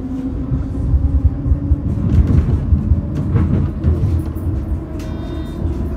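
Bombardier T3000 tram running along street track, heard from inside: a steady low rumble of the wheels on the rails with a constant motor hum. About five seconds in, a high whistling tone comes in sharply.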